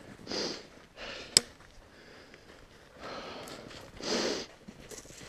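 A person breathing audibly close to the microphone, a handful of breaths spaced irregularly, the loudest about four seconds in. A single sharp click sounds about a second and a half in.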